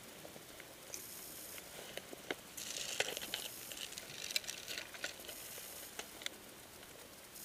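Dry leaves and twigs crackling and rustling underfoot as people walk through woodland, densest about halfway through.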